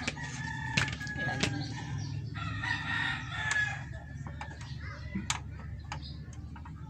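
A rooster crowing twice in the background, each crow a held, slightly wavering call. Over it come a few sharp clicks and knocks from handling the opened TV's circuit boards, and a low steady hum.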